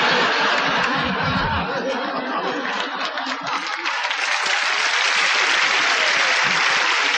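Audience laughing and applauding, a dense, steady sound of many hands clapping mixed with laughter.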